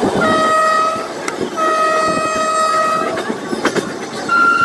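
Train horn sounding three blasts, the middle one the longest at about a second and a half, over the running rumble and clatter of the moving train.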